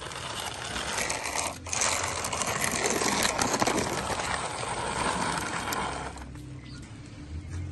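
Plastic toy jeep rolling along rough concrete, its wheels and gears giving a dense rattling clatter that dies away about six seconds in.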